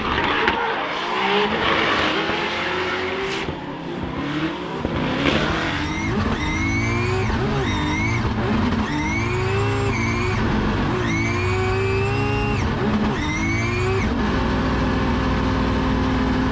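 Drift car at full throttle with tyre squeal. Over the first few seconds the sound is mostly a hissing skid. Then the engine revs up in about half a dozen rising sweeps, each dropping back before the next, and settles to a steady note near the end.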